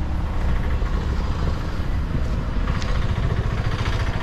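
A motor vehicle's engine running nearby: a steady low rumble with a faint brief squeak almost three seconds in.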